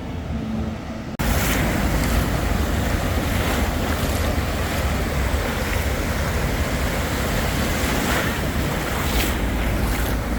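Wind blowing on the microphone over ocean surf. It comes in suddenly about a second in and then stays steady and loud.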